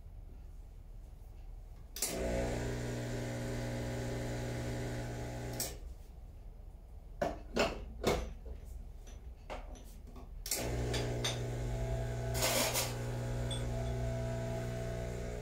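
Rancilio Silvia Pro espresso machine's vibratory pump buzzing for about three and a half seconds, then a few sharp metal clicks and knocks as the portafilter is locked into the group head. The pump starts again about two-thirds of the way through and buzzes steadily as the espresso shot brews, with a brief hiss partway into the run.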